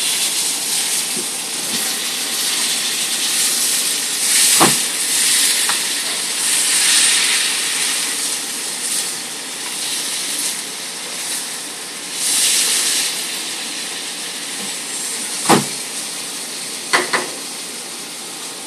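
Chuck steak searing in hot oil in a pan on a gas grill: a steady sizzle that swells and fades. A few sharp knocks of utensils or cookware come about a third of the way in and twice near the end.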